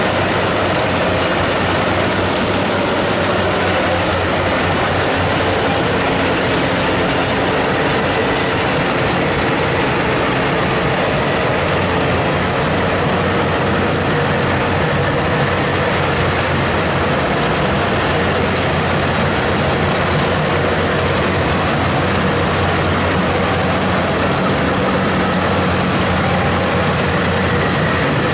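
Rice combine harvester running steadily, a loud constant engine and machine drone with no breaks.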